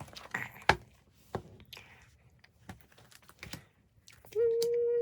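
Small clicks and crinkles of plastic packaging being handled and opened. Near the end a brief steady high-pitched tone sounds for under a second, louder than the rustling.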